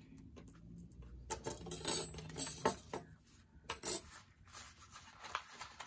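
A loose pile of die-cut paper stickers rustling and crinkling in several short bursts as hands shuffle through them and sweep them together.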